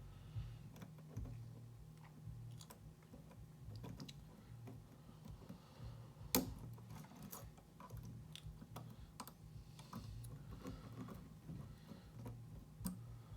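Lock pick and tension wrench working the pins of a pin-tumbler challenge lock held in a false set: scattered light clicks and ticks, with one sharper click about six seconds in.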